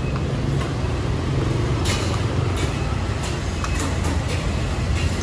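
Steady low rumble of street traffic, with a few light clinks of spoons and dishes about halfway through.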